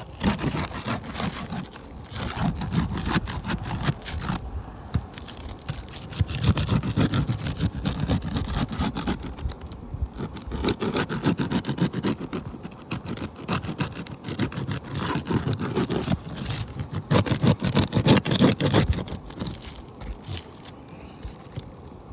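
Asphalt roof shingle being pried and scraped loose from the roof, crackling and tearing as its sealant strip breaks, in several bouts with the loudest just before the end.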